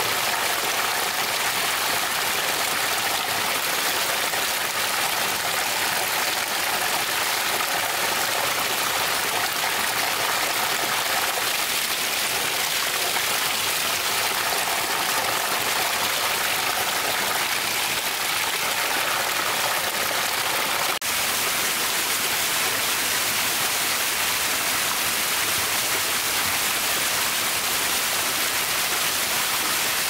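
Steady rushing of a waterfall: a constant hiss of falling water, with a momentary break about two-thirds of the way through.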